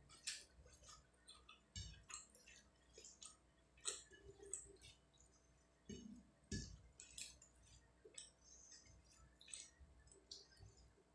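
Fingers mixing rice with fish curry on a plate: faint soft squishes and scattered light clicks, with a couple of dull thumps around two seconds and six seconds in.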